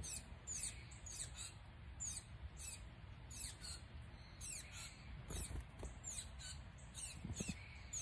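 A small songbird giving a run of high, thin chirps, a few each second, each one sliding down in pitch, over a faint low background rumble.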